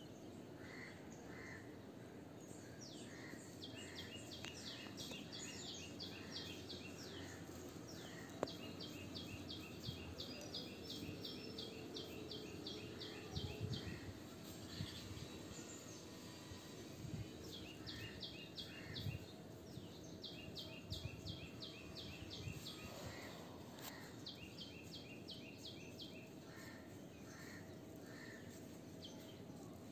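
Birds calling: one repeats fast runs of short high notes, several runs a few seconds long, while a lower note repeats between them, over faint steady outdoor background noise.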